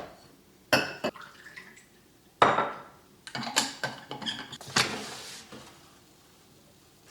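A series of sharp clattering knocks of hard objects, some with a brief ring, at irregular intervals in the first five seconds.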